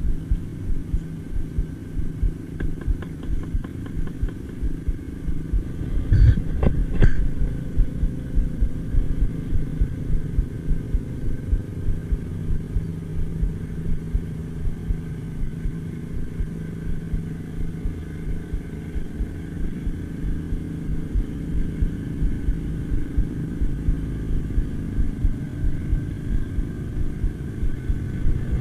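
An engine running steadily with a low hum that pulses at a regular rate. A couple of short knocks come about six to seven seconds in.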